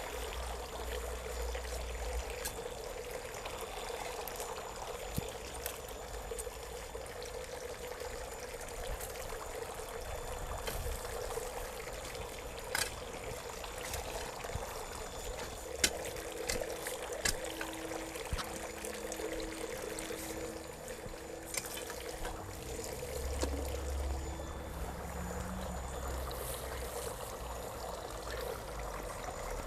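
Steady trickle of running water, with scattered dull knocks of a long-handled hoe digging into garden soil.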